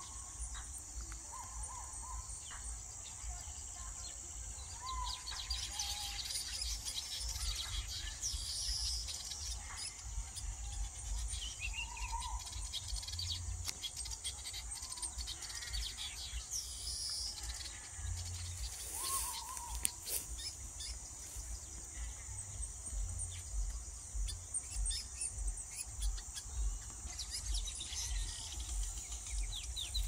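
Birds chirping and calling: short notes every few seconds and scattered high chirps, over a steady high-pitched insect drone. A low rumble of wind on the microphone runs underneath.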